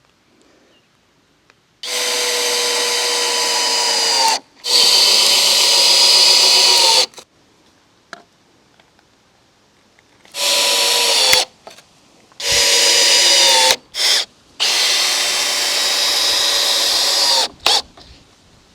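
Cordless drill driving screws into wood: six separate runs, most of a second to three seconds long, with pauses between. The motor's whine holds steady and dips a little in pitch at the end of some runs.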